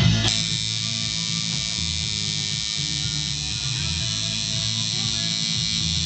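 Tattoo machine buzzing steadily as it runs on the skin, with music playing underneath.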